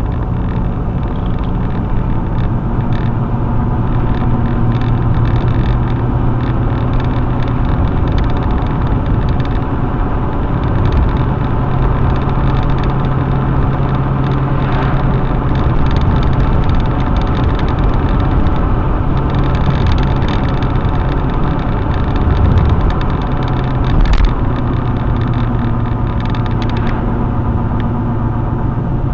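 Car driving at road speed, heard from inside the cabin: a steady engine hum over tyre and road noise, the engine note shifting a few times. A couple of brief louder bumps come about three-quarters of the way through.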